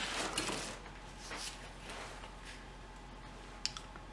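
Faint hand-tool handling: a few soft clicks and rustles, with one sharper click about three and a half seconds in.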